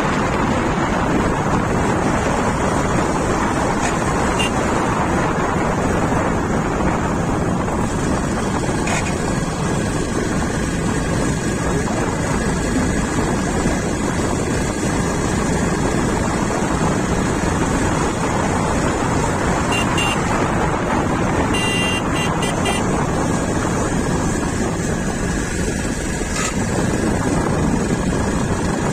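Motorcycle riding, with engine and road noise under steady wind rush on the microphone.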